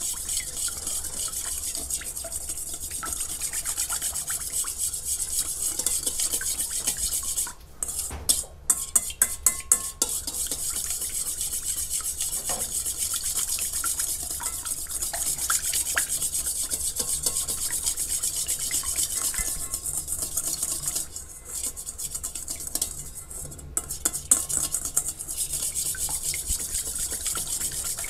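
Wire balloon whisk beating a salve mixture in a stainless-steel bowl, its wires scraping and clicking against the metal steadily, with brief breaks about 8 seconds in and again around 21 seconds. The fat, wax and herbal liquid are being stirred as they cool so that they bind into one emulsion.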